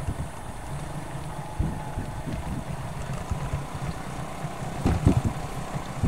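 Motorcycle engine running at low speed, mixed with wind buffeting the microphone, which gusts louder about five seconds in.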